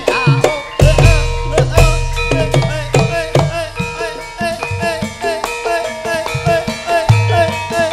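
Live Javanese gamelan music for dance: drum strokes over struck bronze gong-chime and metallophone notes in a steady rhythm.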